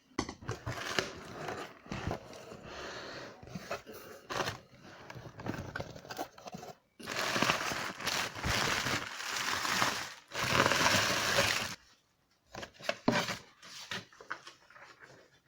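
Packaging being handled and opened: irregular crinkling and rustling with scattered clicks and knocks, and two longer, louder stretches of rustling about seven and ten seconds in.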